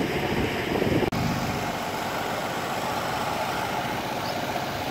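Steady engine drone of the kind heard on an airport apron, with a brief drop about a second in where the recording cuts.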